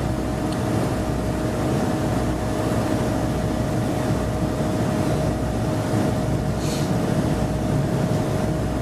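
Interior sound of a Class 153 diesel multiple unit: its underfloor Cummins diesel engine runs steadily with a low rumble and a constant whine.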